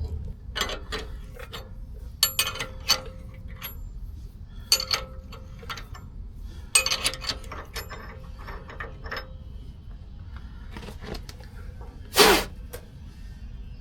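Tap being turned into a steel ball joint housing to cut out an old bushing sleeve: short runs of ratchet-like metal clicking, repeated about five times, with one louder knock near the end.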